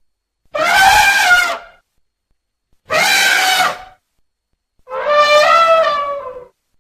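Three elephant-like trumpet calls, used as sound effects for extinct proboscideans such as mastodons, each a second or so long with silence between them. The last call is the longest and falls in pitch at its end.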